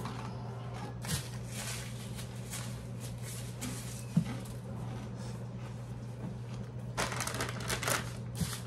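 Chips crunching as they are chewed, a run of small crackly crunches with a sharp click about four seconds in and a denser spell of crackling about seven seconds in. A steady low hum runs underneath.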